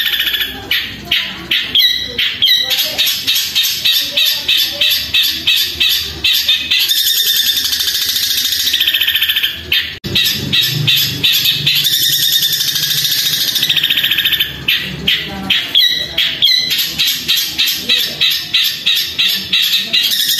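Caged long-tailed shrike (cendet) singing loudly in long runs of sharp, fast repeated notes, several a second, mimicking other birds' calls, with a brief break about halfway through.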